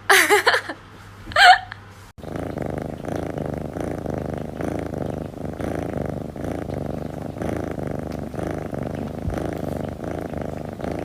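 Two short, loud cries in the first two seconds. Then a domestic cat purring loudly and steadily, close to the microphone, with the purr rising and falling with each breath, a few pulses a second.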